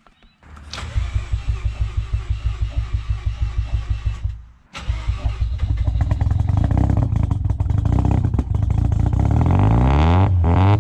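The single-turbo FD Mazda RX-7's rotary engine cranking on the starter in a regular pulsing beat for about three seconds. After a brief break it fires and runs, and the revs climb over the next few seconds and then hold.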